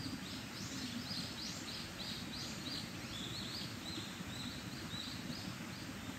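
Mountain stream babbling steadily, with a small bird singing a long run of quick, high chirps, about three or four a second, that start at once and fade out near the end.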